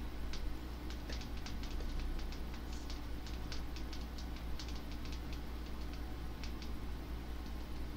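Quick, irregular light clicks, several a second, of thumbs typing on a smartphone touchscreen, over a steady low hum.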